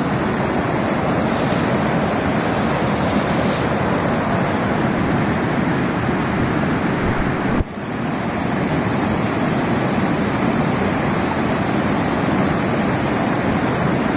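Whitewater rapids rushing over rock ledges at a falls, a steady loud rush of water that dips briefly about halfway through.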